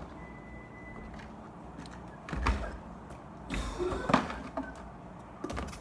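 Objects being handled and set down: a few knocks and bumps, with a short hiss about three and a half seconds in.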